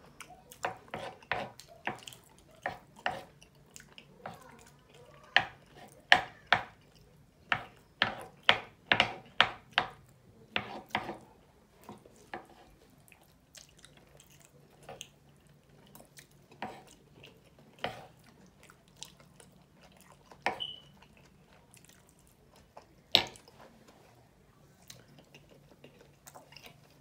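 Eating at a table: a run of sharp clicks and taps from a fork on a wooden serving board and plate as loaded nachos are picked at and eaten, thick for the first ten seconds or so and then only now and then. A faint low steady hum runs underneath.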